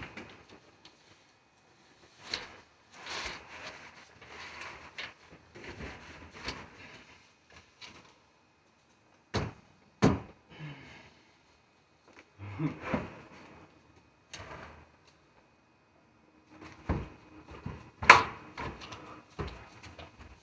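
An 8-foot wooden door with glass panes being handled and fitted into its frame: irregular knocks, bumps and scrapes of wood on wood, with a few sharp knocks, the loudest about eighteen seconds in.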